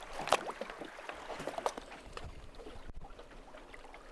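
River water lapping against the hull of an anchored boat, with a few small knocks in the first two seconds and a low rumble coming in for the second half.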